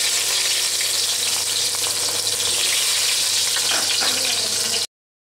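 Ginger-garlic paste sizzling in hot oil in a stainless steel pot, a steady frying hiss. The sound cuts off suddenly near the end.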